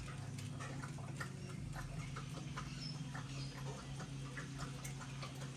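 A husky lapping water from a metal bowl: quick, irregular wet clicks, over a steady low hum.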